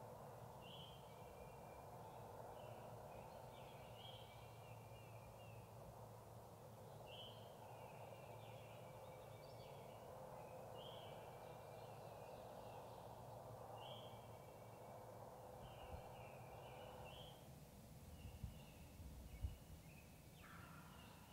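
Faint songbird singing a short, repeated phrase every second or two, over a steady low hiss that drops away about three-quarters of the way through. A few soft knocks near the end.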